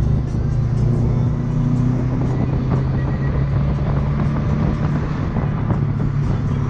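Subaru Impreza WRX STI's turbocharged flat-four engine running steadily while cruising, heard from inside the cabin as a constant low drone.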